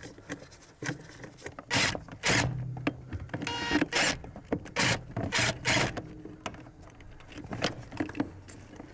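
Short scrapes and clicks of small metal fasteners and clips being worked by hand behind the brake pedal while the brake booster is secured from inside the footwell. About three and a half seconds in, one quick rattle stands out.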